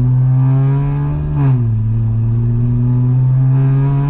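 Straight-piped BMW N54 twin-turbo inline-six accelerating hard: the exhaust note climbs in pitch, drops quickly at a gear change about a second and a half in, then climbs again in the next gear.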